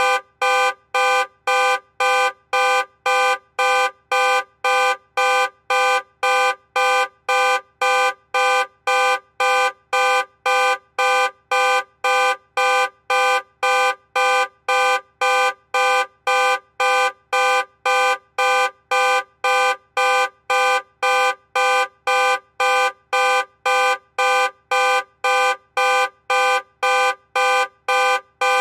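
Car alarm sounding the car's horn in a steady, unchanging rhythm of short honks, roughly two a second, each at the same pitch.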